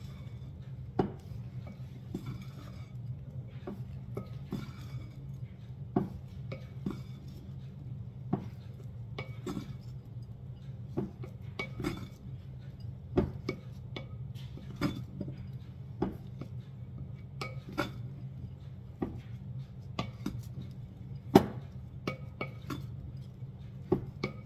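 A cooking utensil knocking and clinking against a large skillet as rice and parsley are stirred and folded together, in irregular sharp clinks about once a second over a steady low hum.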